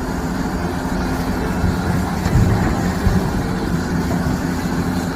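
Motor-driven washer, likely a pressure washer, running steadily with a low hum and a spray of water while a muddy toy is cleaned.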